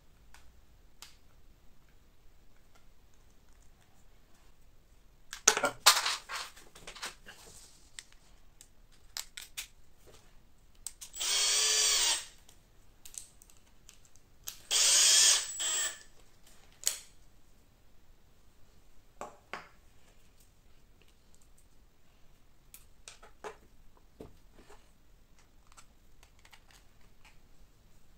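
Cordless drill/driver driving screws into a 3D-printed plastic part in two short runs of about a second each near the middle. Clicks and knocks of plastic parts being handled come before and after.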